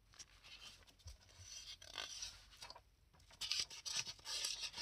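Soft rustling and rubbing of a hardback book being handled and moved, in two spells with a short break about three seconds in.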